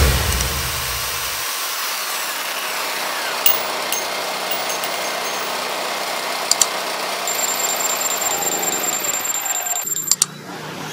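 Electric chainsaw and electric string trimmer running together off a Nagano 3.6 kVA petrol generator, its engine running underneath under about 2400 W of load and carrying it without trouble. There is a low thump right at the start, and near the end the sound drops to a quieter engine hum.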